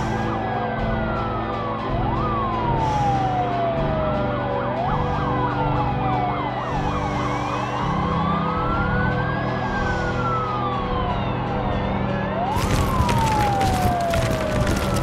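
Several overlapping emergency sirens wail, sweeping slowly up and down in pitch, with bursts of fast warbling yelp, over low sustained music. A dense crackling noise comes in about two-thirds of the way through.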